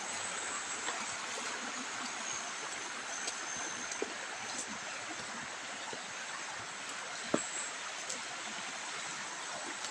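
Shallow creek flowing over rocks, a steady rush of water, with a few faint clicks, one sharper about seven seconds in.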